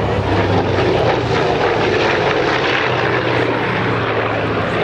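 Aircraft flying overhead: a loud, steady engine drone with a low hum underneath.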